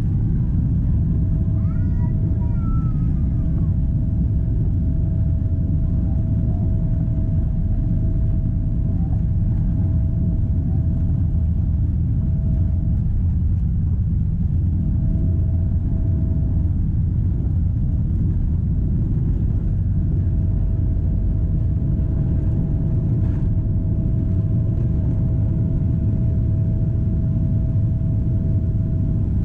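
Cabin noise inside a Boeing 777-300ER: the steady low rumble of the jet engines and airflow, with a faint steady whine that drops out twice around the middle.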